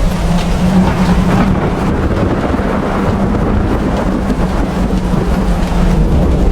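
Steady heavy rain, a dense even hiss, with a continuous deep rumble beneath it.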